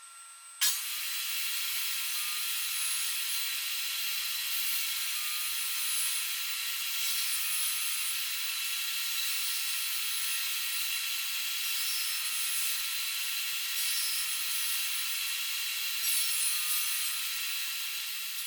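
A woodworking power tool running steadily as it works wood, with a faint steady whine, starting abruptly about half a second in.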